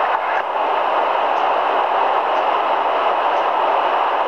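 Steady static hiss from a Grundig G4000A shortwave receiver's speaker, tuned to 27.820 MHz in the 11-metre CB band with no signal coming through, with faint ticks about once a second.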